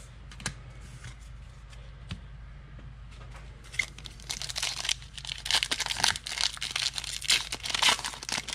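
A trading card pack's wrapper being torn open and crinkled by hand. It starts about halfway in, after a few faint clicks.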